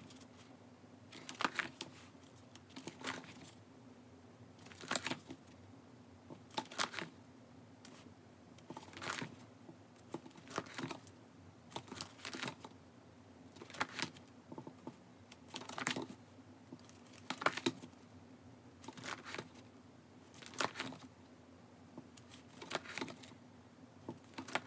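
Plastic 9-pocket binder sleeve pages holding photocards being turned one after another, each turn a short crinkling rustle, about one every one and a half to two seconds over a faint steady hum.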